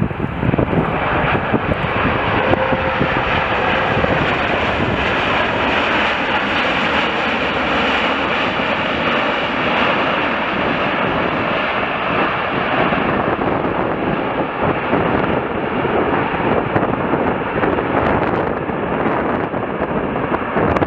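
Jet airliner engines on landing approach, mixed with heavy wind on the microphone in a blizzard. The engine noise is strongest through the first half and eases off later.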